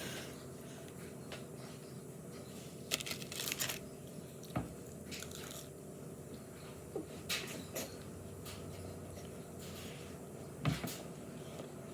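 Eating sounds: a few short crunches and crackles, scattered through the stretch, over a steady low hum.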